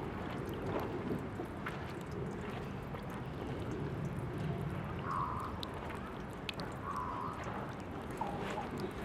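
Tap water running steadily from a drinking-fountain faucet and splashing, with two short higher notes about five and seven seconds in.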